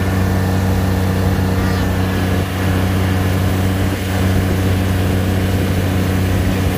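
Side-by-side utility vehicle's engine running at a steady speed while the vehicle drives along.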